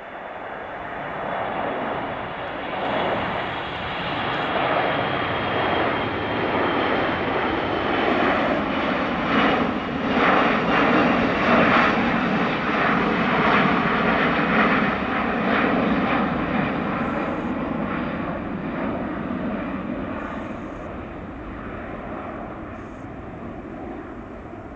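Airbus A340-300's four CFM56 turbofan engines at takeoff climb power as the airliner climbs out and passes overhead. The jet noise swells to a peak midway, then fades as it climbs away, with a high engine whine falling in pitch.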